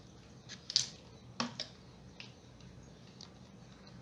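A few light clicks and taps as small cosmetic boxes are set down and shuffled on a hard tabletop, the sharpest about three-quarters of a second in.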